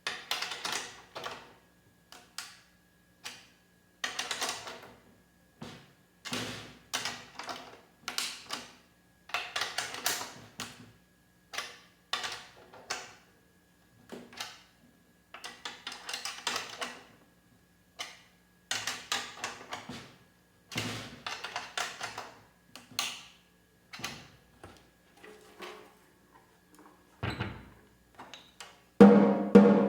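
Drum key turning the tension rods of a snare drum, irregular clusters of metallic clicks and scrapes as the head is tightened. Near the end, the freshly tuned snare is struck several times and rings.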